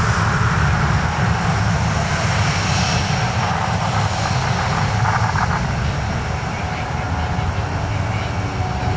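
Jet engines of an Airbus A330-900neo, its Rolls-Royce Trent 7000 turbofans, running loud and steady with a deep rumble under a broad hiss, easing off slightly toward the end.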